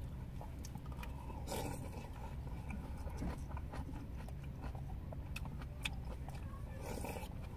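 Quiet eating sounds: soft chewing and scattered small clicks of wooden chopsticks in a plastic takeaway tray and a spoon in a foam bowl, over a steady low hum.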